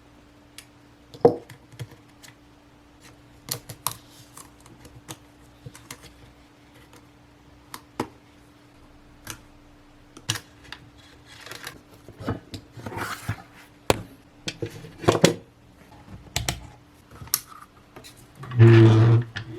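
Scattered clicks, taps and light clatter of small tools and parts handled on an electronics repair bench, over a faint steady hum, with a louder rustling burst near the end.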